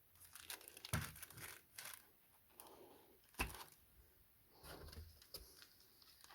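Packaging of a firecracker unboxing being handled and torn open: irregular crinkling and rustling with a few sharp clicks and knocks, the loudest about a second in and about three and a half seconds in.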